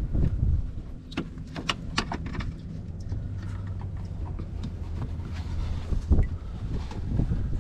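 Metal pick clicking and scraping on the transmission cooler's coolant line fitting and retaining clip: a quick run of sharp clicks in the first couple of seconds and a single knock about six seconds in, over a steady low rumble.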